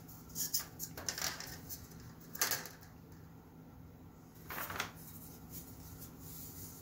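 A few short scrapes and light taps of small workbench handling as a thin balsa strip is laid along the pins on a model-building board, the loudest about two and a half seconds in, over a faint steady hum.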